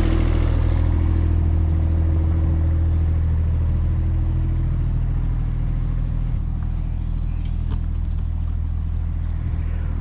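Mini excavator's diesel engine running steadily, a low, even hum that eases slightly in the first couple of seconds.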